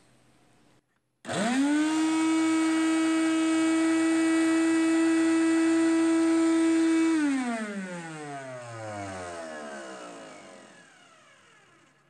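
An old shop vacuum's motor is switched on about a second in. It spins up quickly to a steady high whine with the airflow running through a pillowcase rigged as a makeshift filter. About seven seconds in it is switched off, and the whine falls steadily in pitch as the motor coasts down to a stop.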